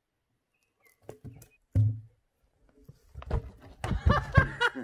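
A heavy log rolling and tumbling down a rocky slope: a few light knocks, a heavy thud about two seconds in, then a run of loud clattering wooden bangs as it crashes into the logs below near the end.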